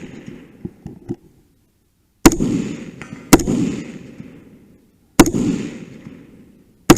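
Four gunshots about two seconds in, a second apart and then spaced wider, each with a long echoing tail, with a few faint clicks before the first.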